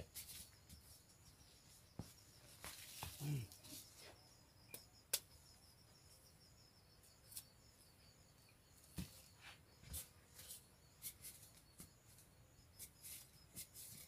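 Faint, scattered scrapes and knocks of digging into dry earth by hand and with a machete blade to unearth wild tubers.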